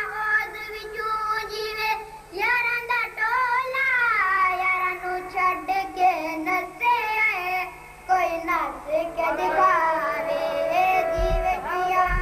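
A boy's voice chanting a religious verse in a sung, melodic style into a microphone, with short pauses for breath and a long held note near the end.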